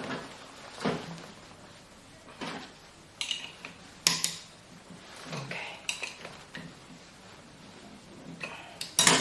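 Angle grinder disc being fitted and its locking nut tightened by hand: scattered metal clicks, taps and short scrapes, with a sharp click near the end.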